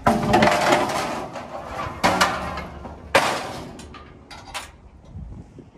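Aluminium car-trailer loading ramp being handled: three loud metal clangs that ring on briefly, the second about two seconds after the first and the third a second later, then a few lighter clicks.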